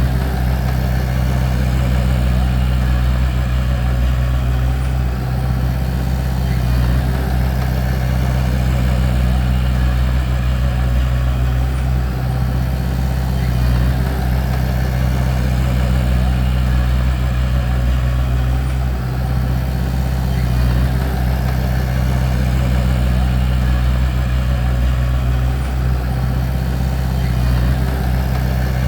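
Bulldozer's diesel engine running steadily at a constant deep pitch.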